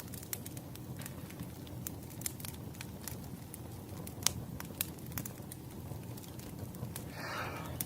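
Wood fire burning, with irregular sharp crackles and pops over a steady low rumble. A brief soft rustle comes near the end.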